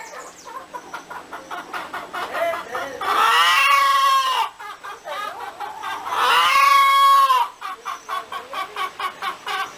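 Chickens clucking in quick short notes, with two long drawn-out calls that rise and then fall, about three and six seconds in.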